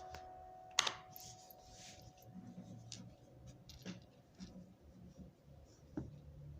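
Close-up handling sounds: a sharp click about a second in, then scattered small clicks, taps and light rustling, with the tail of background music dying away at the start.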